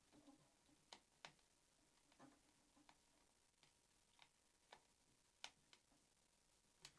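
About nine faint, sharp, irregular clicks from a hand screwdriver turning a screw into the plastic chassis of a Tamiya TT02 RC car.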